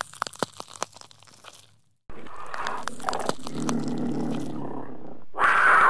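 Crunching and chewing, a quick run of sharp crunches, as a puppet gobbles cat food from a can. About two seconds in it gives way to a louder continuous rough noise that swells near the end.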